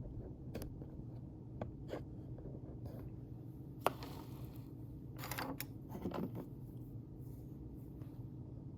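Small metallic clicks and scrapes of a Leatherman OHT multitool being handled while its one-handed blade is flicked out, with one sharp click about four seconds in and a couple of short scrapes after about five and six seconds.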